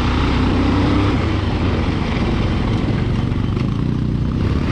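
Motorcycle engine running steadily under way, with wind and road noise.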